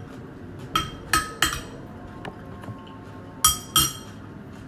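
A metal spoon clinking against a ceramic soup bowl: five short ringing clinks, three close together about a second in and two more near the end.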